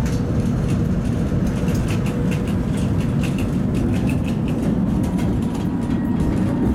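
Tatra T3 tram running along the track, a steady low rumble of wheels and running gear, with a run of light rapid clicks through the middle.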